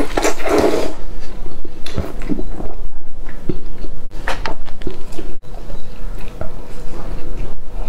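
Close-miked noodle slurping in the first second, then chewing and biting into a piece of meat, with wet mouth sounds and scattered small clicks.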